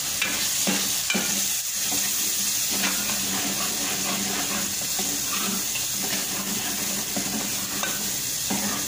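Tomato, ginger-garlic and spice masala sizzling in oil in a metal pot, stirred with a metal spoon, with irregular scrapes and clinks of the spoon against the pot.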